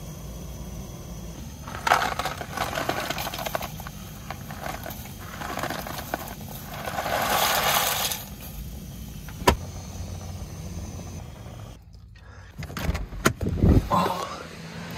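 Dry penne pasta rattling out of its cardboard box into a steel pot of boiling water, a rush of noise lasting a couple of seconds, after two shorter rushes of the same kind. A sharp click follows, then a few knocks and clatter near the end.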